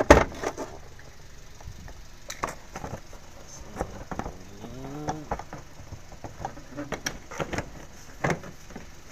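Scattered light knocks and clicks from the car body being handled, a sharp one right at the start, with a short pitched tone that rises and falls near the middle.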